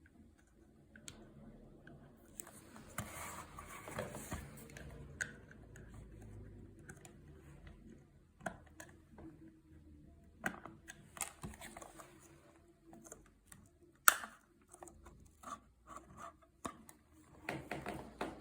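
Handling sounds of a System Sensor smoke detector being opened and cleaned: scattered small plastic clicks, scrapes and rustles, with one sharp click about 14 seconds in.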